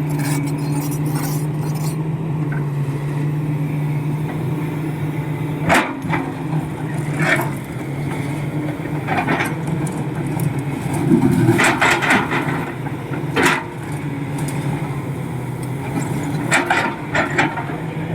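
Komatsu PC71 hydraulic excavator's diesel engine running steadily, with several short sharp clanks through it.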